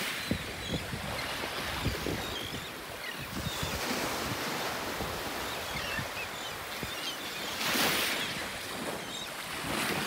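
Small surf breaking and washing up the beach, with a louder wave wash about eight seconds in. Scattered short calls come from the seabirds feeding offshore, and wind gusts buffet the microphone.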